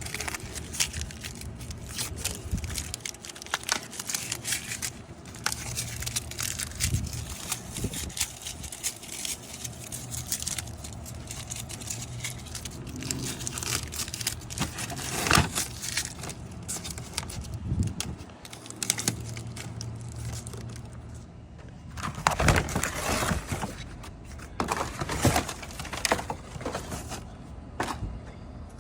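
Irregular rustling, crinkling and clicking handling noises, with a few louder bursts of rustle partway through and near the end.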